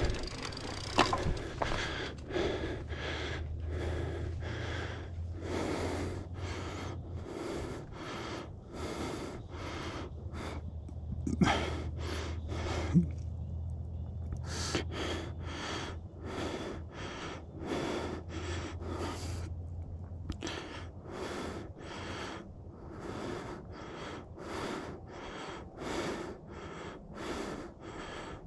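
A mountain biker breathing hard in quick, even breaths, about two a second, close to the microphone. There are a few sharp knocks, the loudest about eleven seconds in.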